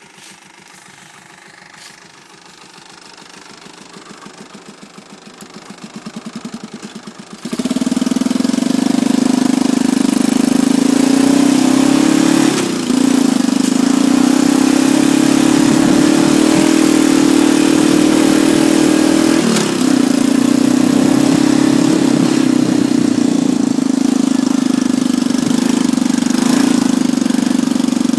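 1986 Honda FourTrax 350 4x4 ATV's single-cylinder engine idling with a pulsing beat, growing louder for the first seven seconds or so. It then gets suddenly much louder and runs steadily as the quad is ridden, with two brief dips in between.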